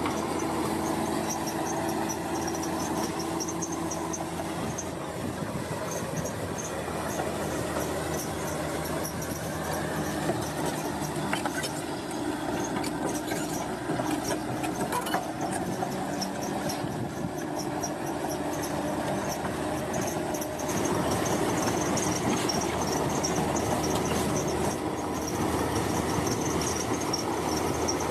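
Bulldozer working soil: the diesel engine runs steadily under a high, repeating squeal typical of steel crawler tracks. It grows a little louder about three-quarters of the way through.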